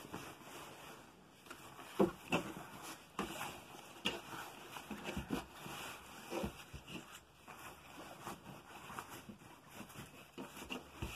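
Cloth fabric rustling and brushing against a table as it is spread out and smoothed by hand, with irregular light knocks and rustles.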